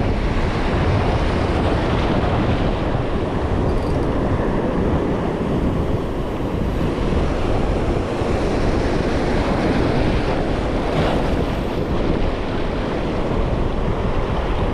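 Ocean surf breaking and washing over shallow rock, with wind buffeting the microphone: a steady, unbroken rush of noise.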